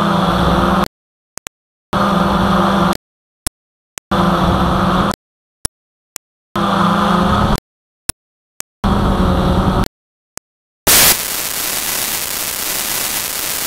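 Cheerson CX-22 quadcopter's motor and propeller hum, cut into about five one-second fragments separated by dead silence and short clicks. From about eleven seconds in, a steady loud hiss of static takes over. This is the drone's onboard recording breaking up as its battery cuts out.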